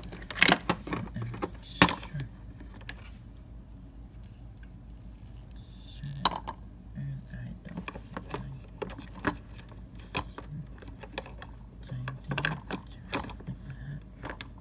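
Plastic toy pony figures clicking and knocking against a hard plastic playset as they are handled, in scattered bunches of sharp taps.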